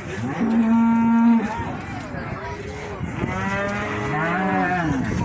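Cattle mooing: a level, steady call of about a second near the start, then, after a pause, a longer call that rises and falls in pitch, overlapped by a second animal's moo.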